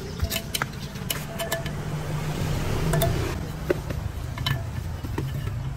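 Metal spoon and wooden pestle clicking and scraping against a clay mortar as a shredded salad is tossed, scattered irregular knocks over a steady low hum.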